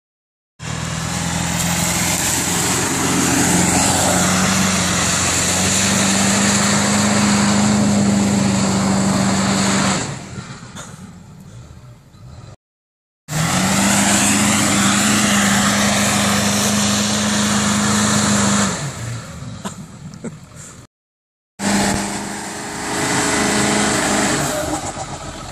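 Ford Excursion's engine running hard under load as the SUV pushes through tall grass, a loud, steady engine note held for several seconds at a time before dropping away. The sound breaks off twice at cuts, each clip starting again loud.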